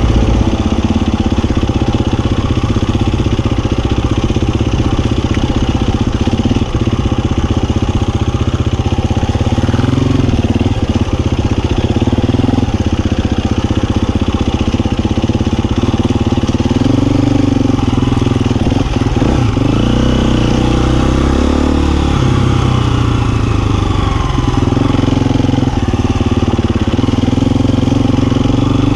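Husqvarna FE350 single-cylinder four-stroke dirt bike being ridden off-road, its engine note rising and falling over and over as the throttle is opened and closed.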